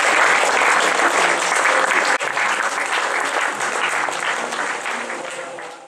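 Live theatre audience applauding, the clapping fading out over the last second or so before it cuts off.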